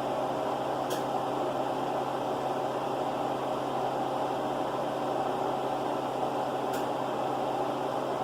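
A steady hum and hiss with a constant low tone, of the kind a running fan or appliance makes, with two faint clicks, about a second in and near the end.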